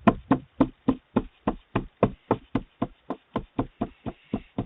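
A door being knocked on rapidly and steadily, about four knocks a second, heard through a doorbell camera's microphone.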